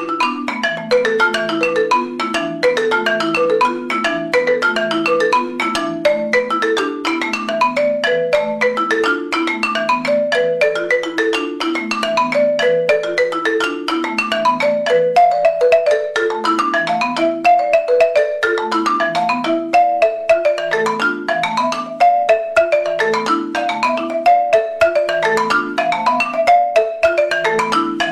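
Marimba music played with mallets: a fast, steady stream of notes over a repeating pattern of low notes.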